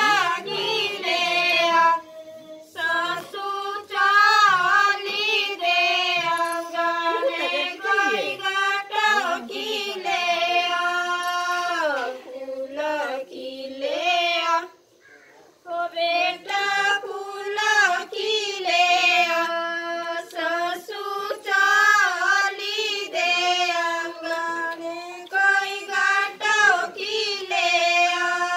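A woman singing a Himachali wedding folk song (vivah geet) without instruments, in long held notes with slides between them. She breaks off briefly about halfway through, then goes on.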